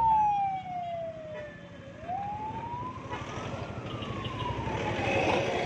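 Rescue van's siren wailing in a slow sweep: falling for about two seconds, then rising and falling again. Motorcycle engine noise builds in the second half.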